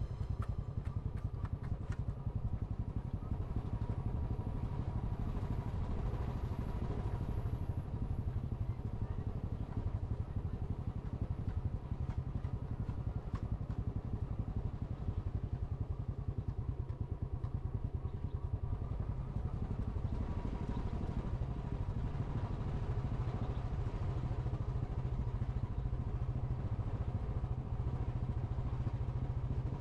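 Engine of the vehicle carrying the camera running steadily at cruising speed, with a deep, even rumble.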